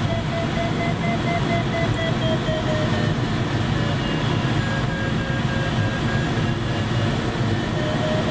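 Steady rush of air and structural rumble in a glider cockpit, with the audio variometer beeping in an even series of short tones whose pitch dips slightly in the middle and rises again near the end, the sound it makes while the glider climbs in a thermal.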